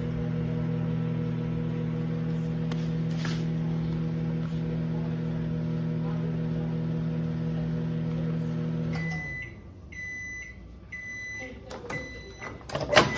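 COMFEE' retro small microwave oven running with a steady hum, which stops about nine seconds in as its 30-second cooking cycle ends. A few short high beeps follow to signal it is done, then a loud clack near the end.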